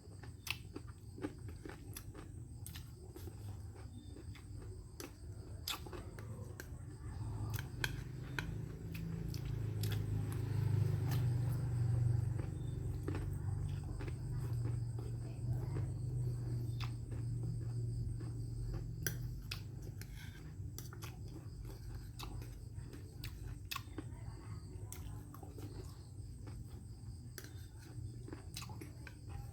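Eating at a meal of fried fish and rice: scattered clicks and taps of chopsticks and bowl with chewing, over a steady high insect drone. A low hum swells up in the middle and fades again.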